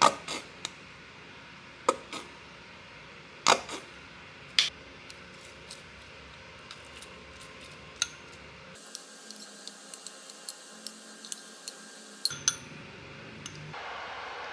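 Quiet kitchen handling sounds: a few sharp taps and knocks of a plastic squeeze bottle and a ceramic bowl, then a run of light clicks and scrapes as a metal utensil stirs shredded cabbage in the bowl. A soft steady hiss comes in near the end.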